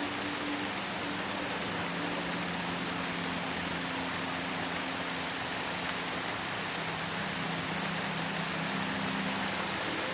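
Steady, even rain. A few soft, held low tones of ambient music sit underneath and slowly shift.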